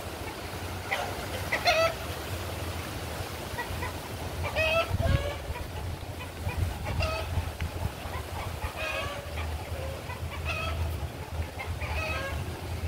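Free-roaming chickens, roosters and hens, calling in short clucks and squawks every second or two, with a low rumble underneath.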